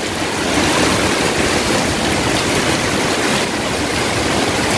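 Heavy, wind-driven rain pouring onto a flooded concrete yard: a loud, steady, dense hiss of falling water.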